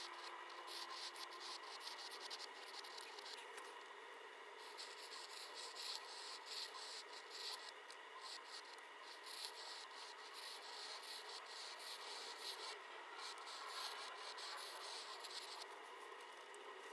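Flexible metal pen nib scratching across paper, drawing one quick looping stroke after another with brief pauses.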